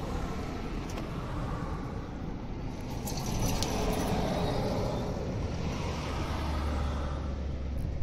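Steady rumble of passing motor vehicles in the background, with a low engine drone swelling over the last few seconds and a few faint light clicks.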